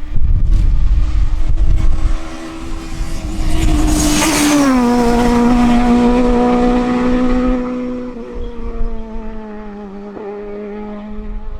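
Peugeot 306 Maxi Kit-Car rally car passing at speed, its high-revving four-cylinder engine note dropping in pitch as it goes by about four and a half seconds in, then fading as it drives away.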